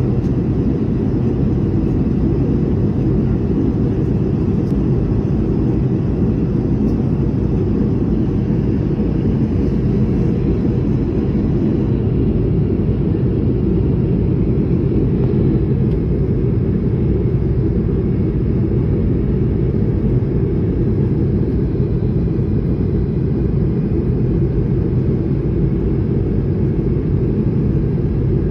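Steady low roar inside the cabin of an Airbus A220 airliner in flight: engine and airflow noise heard from a window seat.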